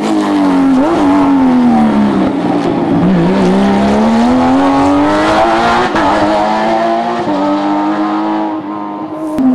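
Hill-climb race car engine under hard acceleration. The revs fall away to a low about three seconds in, then build again, with sharp drops in pitch at gear changes near the start, about one second in, about six seconds in and about seven seconds in. The sound dulls shortly before the end.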